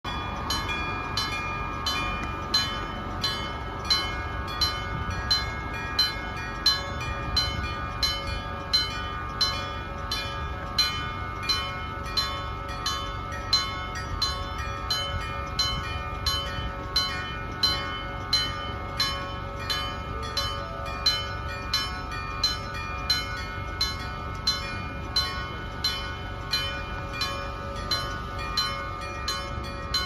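Electric bell of a railway level crossing ringing its warning steadily: a gong struck about three times every two seconds, each strike ringing on. It signals that a train is approaching and the crossing is closing.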